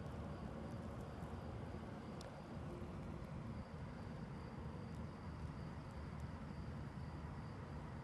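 Crickets chirping in a night-time chorus: a faint, continuous high trill over a steady low rumble, with a few faint clicks.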